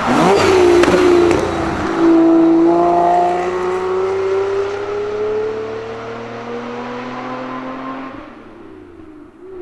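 Jaguar XJC's V12 engine, on its new exhaust, accelerating past; the engine note rises steadily in pitch as the car pulls away and fades.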